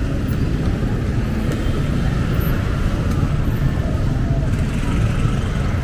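Busy street ambience: a steady low rumble of vehicle traffic with faint voices of people around.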